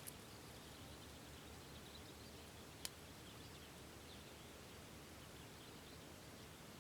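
Near silence: faint outdoor background with scattered light high ticks and one short sharp click about three seconds in.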